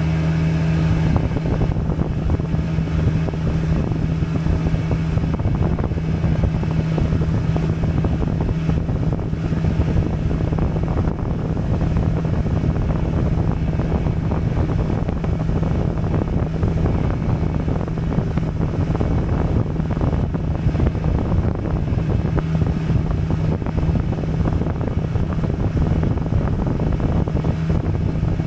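A small fishing boat's motor running steadily underway, with a constant low hum, and wind buffeting the microphone. The hum is strongest in the first second and again near the end.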